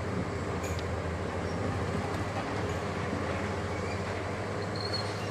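Diesel engine of a Hitachi KMC870 (870 XXL) demolition excavator running with a steady low drone as it works its long demolition boom.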